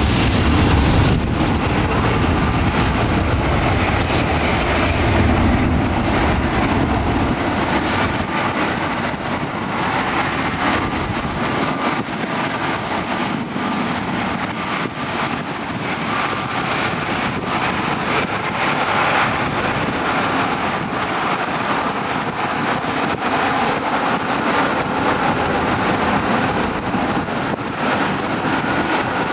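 An Airbus A320-200's CFM56 jet engines running at takeoff thrust as the airliner rolls down the runway and climbs away: a steady, loud roar with a faint high whine through it, the deep rumble thinning out after the first several seconds.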